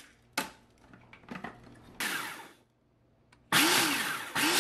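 Hamilton Beach food processor pulsed in short bursts, its blade grinding dry instant ramen noodle blocks into powder. There is a brief burst just after the start, another about two seconds in, and two close together near the end, with the motor's pitch rising and falling on each pulse.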